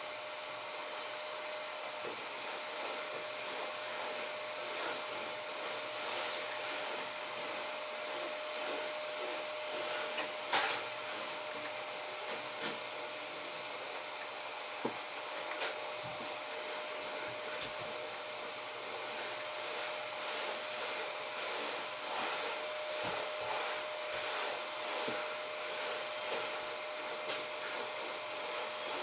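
Dell Precision T5500 workstation's cooling fans whirring steadily while it runs a 3D graphics benchmark, with a thin steady whine over the whir and a few faint clicks.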